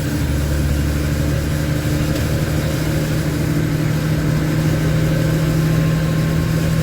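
LMTV truck's Caterpillar diesel engine running steadily while the truck is driven.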